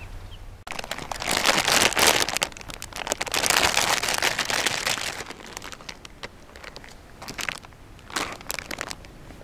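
Crinkling and rustling of packaging as bread is handled, in uneven bursts for about four seconds. A couple of short crackles follow as slices are laid on a small round wire grill net.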